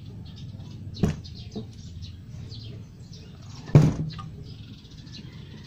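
Small birds chirping repeatedly in the background over a low steady hum, with a sharp click about a second in and a louder knock near four seconds.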